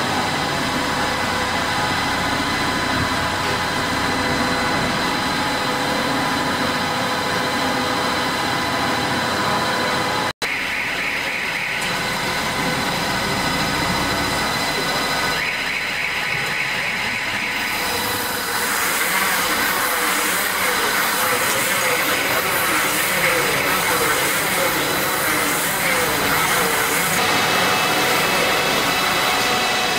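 Orkel MP2000 silage compactor baler running at work, a steady mechanical hum and clatter with several steady whining tones. The sound breaks for an instant about ten seconds in, and a louder hiss joins from about eighteen seconds in.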